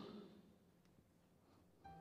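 Near silence, with soft held keyboard chords coming in just before the end; a man's last word echoes away at the very start.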